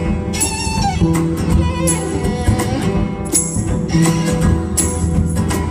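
Live acoustic band music: fiddle over two upright basses and a drum kit, with a percussion hit on the beat about once a second.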